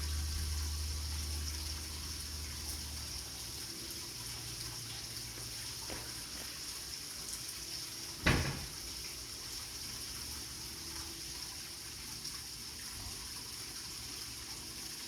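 Water running steadily with a high, even hiss, as from a tap. There is a low hum in the first second or so, and one sharp knock a little past halfway.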